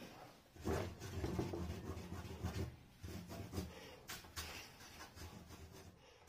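Pencil work on sketch paper: scratching and rubbing strokes, busiest in the first half, then a few short separate strokes that fade out.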